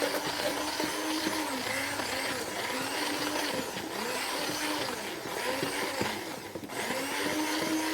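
Electric hand mixer running, its beaters whipping thick cake batter in a bowl. The motor's pitch wavers as it works, with a brief dip about six and a half seconds in.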